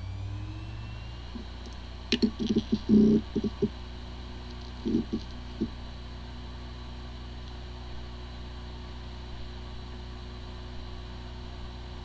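Hard drive with corrupted disk firmware powering up: a rising spin-up whine in the first second, a quick run of clicks from the heads about two to three and a half seconds in and a few more around five seconds, then a steady spinning whir. It sounds like a healthy drive, though the computer cannot detect it.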